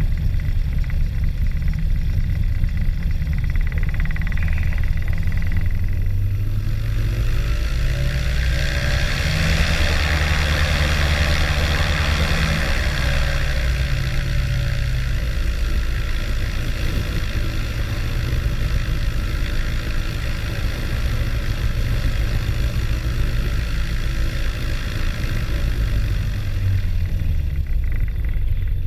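Motor glider's water-cooled piston engine and propeller on a pre-takeoff power check. From idle it runs up to higher power about seven seconds in, holds for several seconds with a loud propeller hiss, then settles back to a steady idle.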